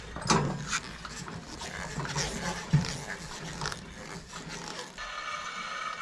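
Irregular breathy noises and knocks, the sharpest knock near three seconds in. About five seconds in, a steady high electric whine starts as the Woodland Mills sawmill head is driven along its track toward the log stop.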